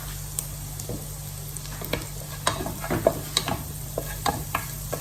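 Minced onion sizzling in melted butter in a frying pan while a utensil stirs it, with irregular sharp clicks and scrapes against the pan.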